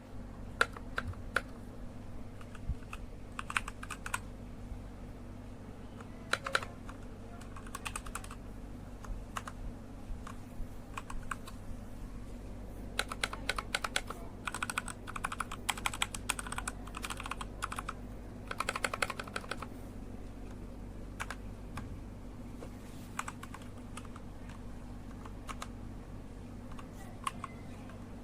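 Typing on a Redragon K617 FIZZ 60% compact mechanical keyboard: keys clacking in irregular flurries with short pauses between, busiest in the middle, over a steady low hum.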